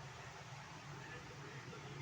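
Faint steady low hum with a light hiss: quiet room tone, with no distinct events.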